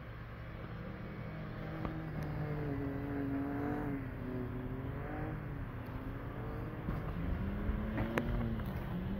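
A 4x4 SUV's engine revving up and down as it drives through snow, its pitch rising and falling over a few seconds at a time. A single sharp click comes about eight seconds in.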